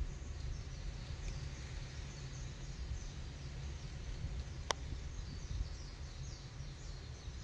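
Outdoor ambience: wind rumbling on the microphone, with faint, repeated high chirps throughout and a single sharp click a little past halfway.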